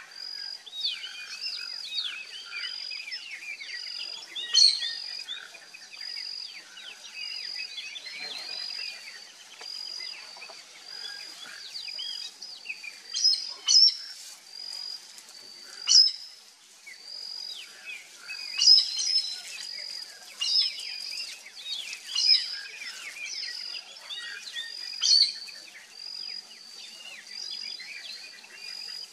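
Birds calling in a dense mix of chirps and trills, with one high note repeated steadily over and over and louder sharp calls breaking in every few seconds.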